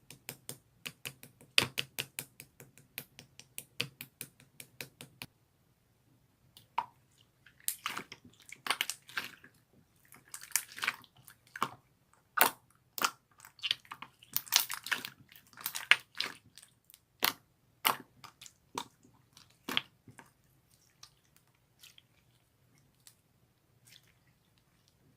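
Slime being squeezed and poked by hand, popping and clicking. It starts with a quick run of sharp sticky clicks, about four a second, pauses briefly, then turns to wetter squishing with louder pops before thinning out to faint clicks near the end.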